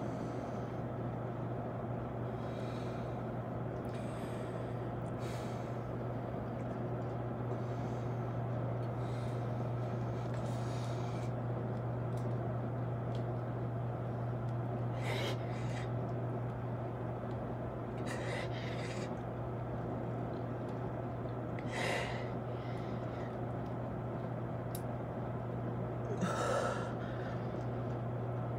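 A man breathing hard while doing push-ups, with a sharp exhale or gasp every second or two and a few louder ones in the second half, over a steady low hum.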